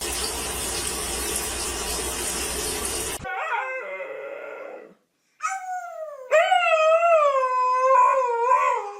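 A dog howling: a short cry falling in pitch, then a long wavering howl in the second half. Before the howling there are about three seconds of steady hiss.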